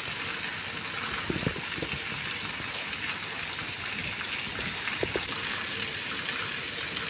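Heavy rain falling on a wet paved lane and puddles: a steady hiss.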